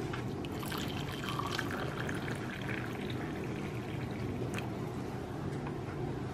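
Water pouring in a stream into a ceramic mug over a tea bag, splashing as the mug fills. A single sharp click about four and a half seconds in.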